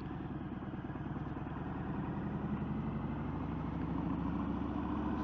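Motorcycle engine running under way, heard through a camera mounted on a full-face helmet: a steady low engine pulse that grows slightly louder.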